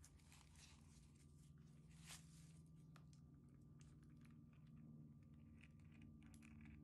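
Faint scattered clicks and rustles of a flexible silicone mold being peeled off a cast concrete tray by hands in disposable gloves, with one sharper click about two seconds in.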